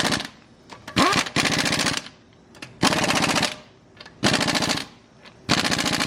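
Impact wrench hammering in repeated short bursts of about half a second, a rapid rattle of blows each time.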